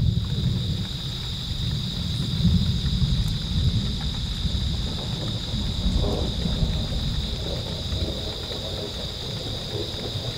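Thunder rumbling in a rainstorm, a long rolling rumble that swells several times, with rain falling.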